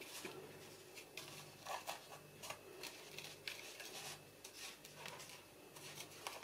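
Faint, irregular soft rubbing and light scraping of fingers pressing and shaping a sticky peanut-butter-and-oat cookie dough in a bowl.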